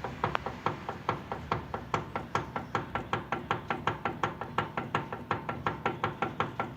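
Steering rack knocking with a sharp metallic clack, about five even knocks a second, as the steering is worked back and forth. The knock is play in the rack, which the owner places either in the rack's gear or under its dust boot.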